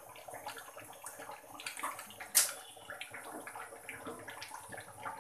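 Thick beef curry simmering in a large pot: a steady run of small bubbling pops and crackles, with one sharp click about two and a half seconds in.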